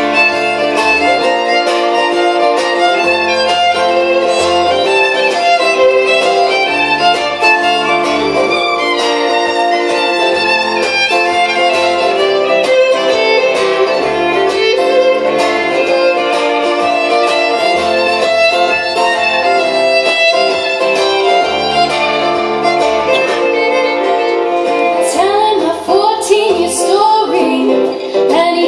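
Live folk instrumental break: a fiddle plays the lead melody over steadily strummed acoustic guitar.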